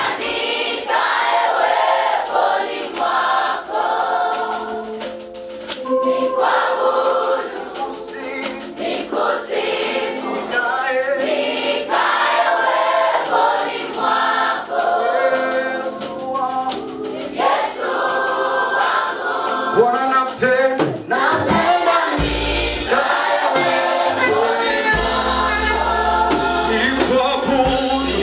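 Gospel choir singing a praise song, with a tambourine-like rattling percussion running through it. A deep bass comes in about three-quarters of the way through.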